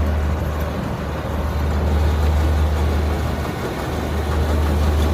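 Kubota DC60 combine harvester's diesel engine running steadily, a constant low drone.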